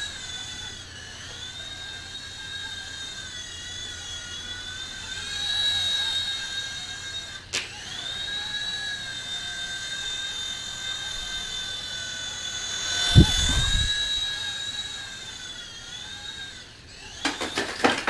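Small electric RC helicopter's motor and rotor whining steadily, the pitch dipping and rising with the throttle. There is a low thump about 13 seconds in; near the end the whine stops and a quick run of knocks and clicks follows.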